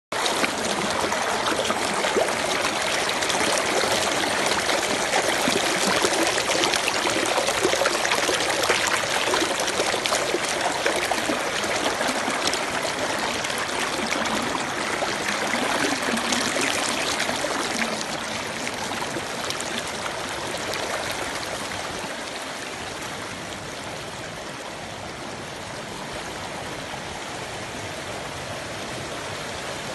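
Stream water flowing steadily, with a continuous rushing and babbling. It eases somewhat past the halfway point.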